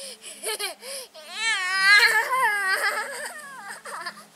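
A toddler's voice: a few short vocal sounds, then about a second in a long, high-pitched, wavering squeal lasting some two seconds, made while he is being hugged and tumbled about in play.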